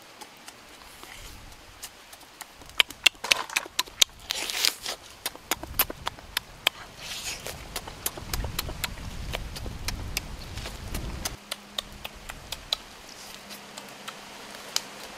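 Close-up eating sounds of a roasted duck being gnawed: wet chewing, lip smacks and meat tearing from the bone, heard as a string of sharp clicks that crowd together a few seconds in. A low rumble runs for about three seconds past the middle.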